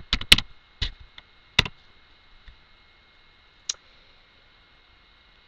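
Computer keyboard keystrokes: a few last sharp key clicks in the first two seconds, then a single click about three and a half seconds in.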